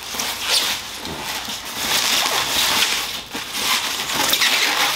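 Thin white plastic wrapping rustling and crinkling continuously as it is pulled and worked off a motorcycle helmet, swelling and easing several times.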